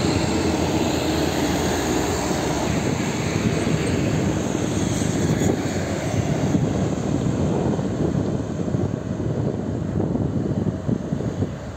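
Heavy diesel trucks passing on a highway: a steady mix of engine rumble and tyre noise.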